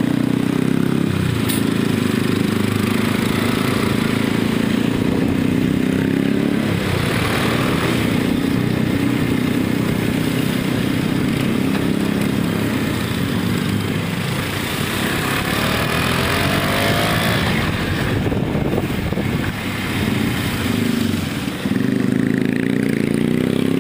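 Motorcycle engines running at riding speed, heard from a moving bike in a group ride, with a steady rush of wind noise. The engine note holds fairly steady, shifting in pitch briefly near the middle.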